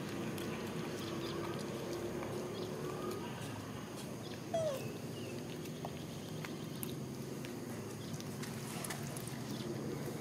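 A macaque gives one short, falling squeak about four and a half seconds in, over a steady low background hum and scattered faint clicks.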